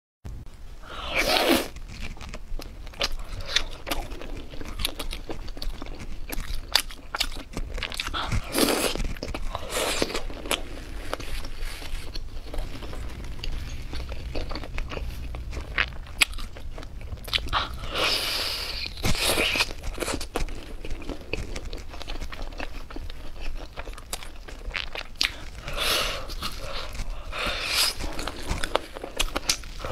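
A person biting and chewing spicy skewered food coated in chili flakes and sesame, with crunching bites and wet mouth clicks throughout. There are louder bursts of crunching about a second in, around nine and ten seconds, around eighteen to twenty seconds and near the end.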